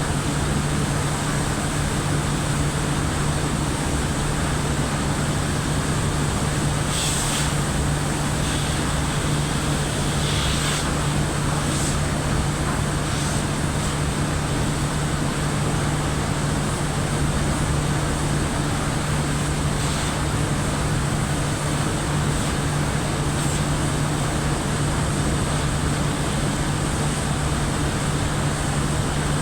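Steady, loud machinery noise with a constant low hum, with a few faint clicks about seven and ten seconds in.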